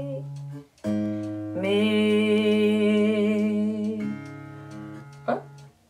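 Single notes plucked on an acoustic guitar and left ringing, with a woman singing a long held 'me' along with the note from about a second and a half in; another note sounds about four seconds in.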